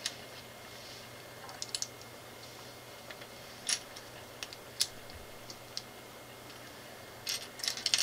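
Small plastic LEGO pieces clicking and clattering as they are picked from a pile and pressed together: scattered sharp clicks, with a quick cluster of them near the end.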